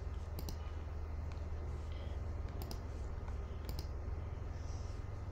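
Computer mouse clicking three times, each click a quick press-and-release double tick, over a steady low hum.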